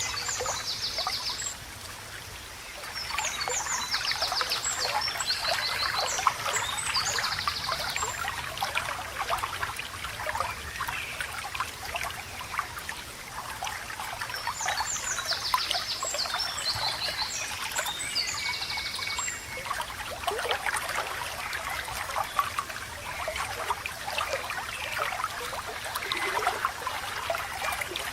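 Running water babbling and trickling steadily, with a songbird singing runs of quick, high trilled notes: briefly at the start, then a few seconds in, and again around the middle.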